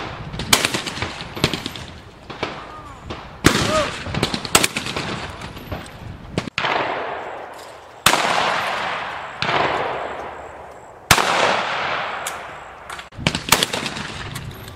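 Shotgun shots at clay targets, about ten in all, spaced irregularly a second or more apart; several are loud and close, with long echoing tails that die away over a second or two.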